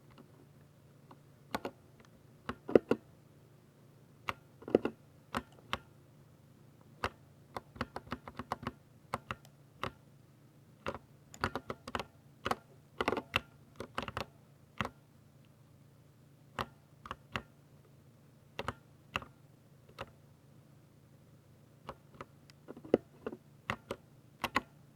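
Typing on a Ducky 60% mechanical keyboard with silver switches: irregular keystrokes in quick clusters, broken by brief pauses.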